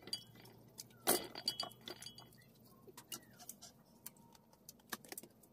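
Spoon clinking and scraping in a pot as food is scooped out: a sharp clink about a second in, then a scatter of lighter clicks.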